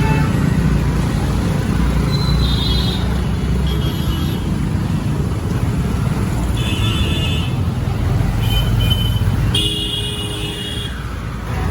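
Street traffic: a steady rumble of motor engines with several short horn honks from passing vehicles.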